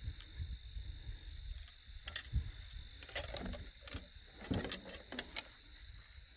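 Light clicks and knocks of a fishing reel being handled, a few scattered sharp ones in the middle seconds, over a steady high drone of crickets.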